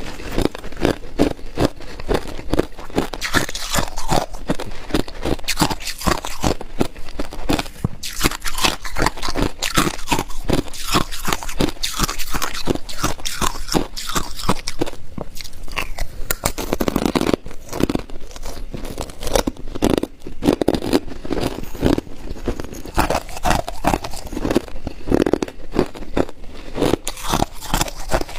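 Ice being bitten and chewed close to the microphone: a dense, irregular run of loud crunches and crackles.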